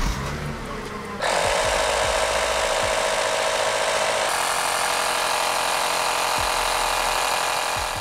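Small portable air compressor running steadily with a fast mechanical buzz, pumping air into the rear air shocks. It starts about a second in and stops near the end.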